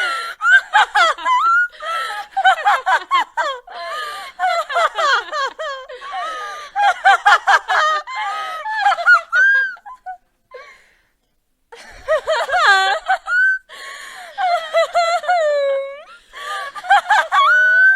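A woman's high-pitched evil cackling laugh in quick pulses. It breaks off about ten seconds in, then starts again with longer laughs that swoop up and down in pitch.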